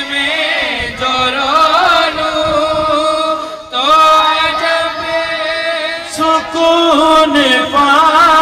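A man singing a naat, an Urdu devotional song, into a microphone, drawing out long, ornamented held notes with a short break for breath about three and a half seconds in.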